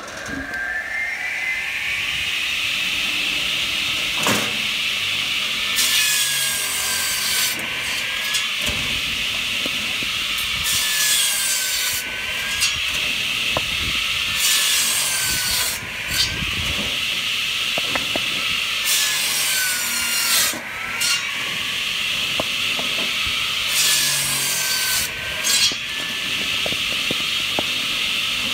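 Hartnett 500 mm electric log saw bench, its circular blade spinning up to speed with a rising whine at the start and then running steadily. Five times the blade bites through a log, each cut a loud rasping passage lasting a second or two before the whine settles back.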